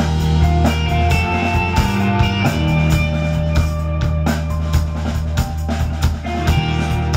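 Live rock band playing an instrumental passage with no singing: electric guitars, bass guitar held on steady low notes, and a drum kit keeping time.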